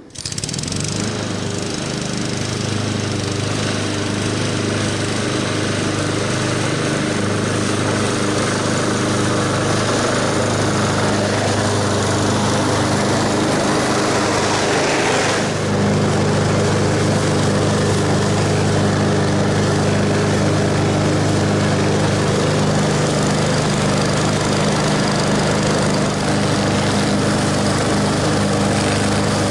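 Honda HRX217 walk-behind lawn mower's engine running steadily at cutting speed while mowing grass, its blade and deck adding a rushing noise. About halfway through the sound dips briefly and then comes back a little louder.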